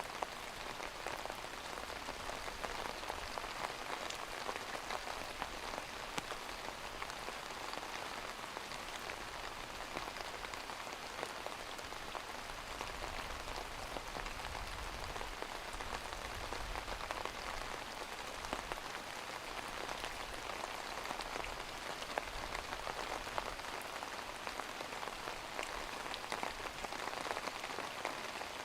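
Steady rain falling and pattering on a surface, an even hiss with many small drop ticks.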